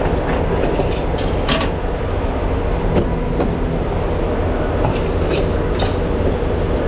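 Heavy truck's diesel engine idling steadily, with a few light clicks and knocks over it.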